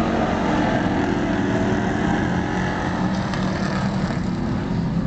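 Engines of a pack of stock cars racing on a dirt oval, several engines running at once in a steady drone that dips a little about three seconds in as the pack moves to the far side.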